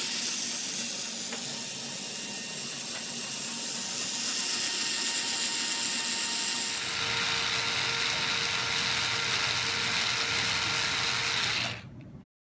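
Rapid ratcheting clicks from the pawls of a Sturmey-Archer hub's internal gear assembly as the parts are turned by hand while the right-hand cone is spun down the axle. It grows louder about halfway through and stops suddenly near the end.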